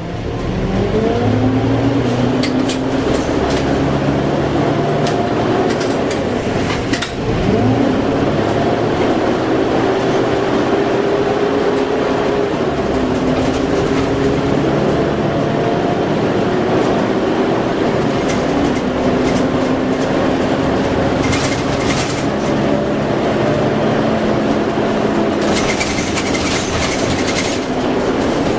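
Cummins M11 straight-six diesel of a Dennis Dragon double-decker bus, heard beside its radiator, running under load through its Voith DIWA automatic gearbox. The engine note rises over the first couple of seconds, drops briefly at a gear change about seven seconds in, then holds a fairly steady pitch.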